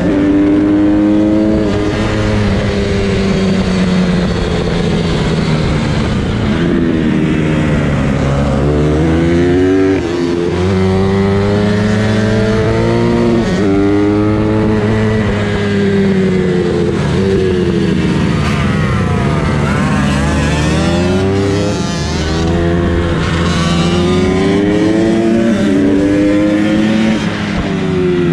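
Supermoto motorcycle engine heard from on board, repeatedly revving up through the gears and falling back off the throttle, several times over, with wind noise on the microphone.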